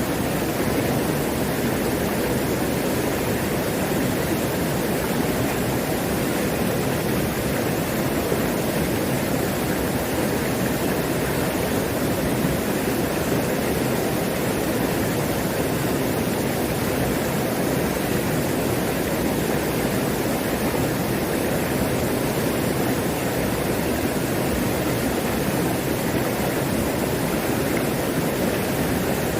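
Mountain stream running high with plenty of water, a steady, unbroken rush of water.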